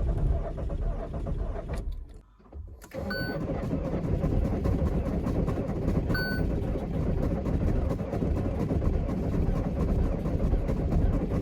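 Camper van's engine running with a steady low rumble, in extreme cold. It cuts out briefly about two seconds in and then carries on. Two short electronic beeps sound over it.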